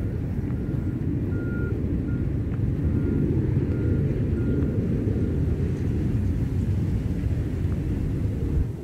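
A steady low rumble with a vehicle's reversing alarm beeping faintly and evenly about every half second, the beeps fading out about five seconds in.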